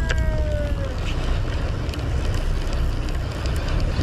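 Steady low rumble of a sportfishing boat's engine with wind on the microphone; a short pitched cry falls away near the start.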